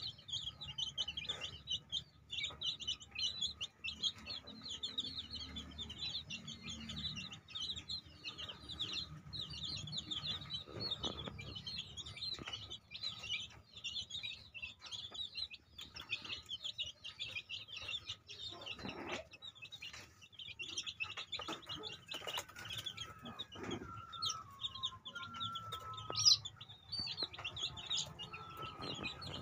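A flock of week-old native chicks peeping constantly: many short, high chirps overlapping without a break, with one louder peep near the end.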